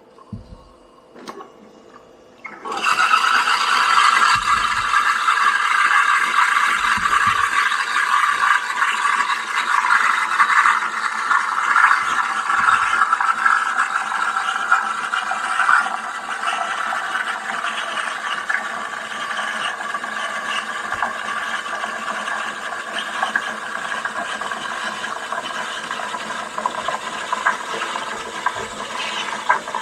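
De'Longhi La Specialista EC9335M steam wand hissing steadily as it froths cream for foam. It starts about three seconds in, after a few faint clicks from the steam dial being turned, and eases a little about halfway through.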